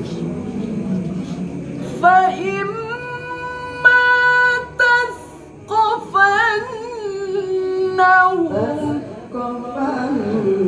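Qur'an recitation (tilawah) in maqam Nahawand, sung by a qori in a high voice. Long held notes carry wavering melismatic ornaments. The recitation starts about two seconds in, breaks briefly in the middle, and fades out shortly before the end.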